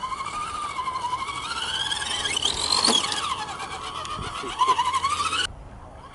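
Electric motors and geared drivetrains of two RC rock crawlers whining, their pitch rising and falling with the throttle, with two whines crossing each other about halfway through. The sound is loudest shortly before it cuts off suddenly, about a second before the end.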